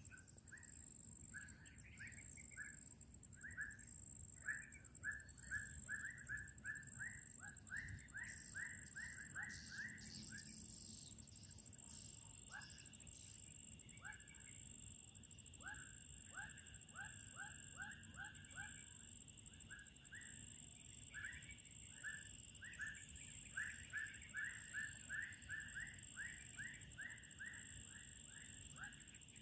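A bird calling in long runs of short, repeated notes, two to three a second, each run growing louder before it breaks off, with a steady high-pitched hum underneath.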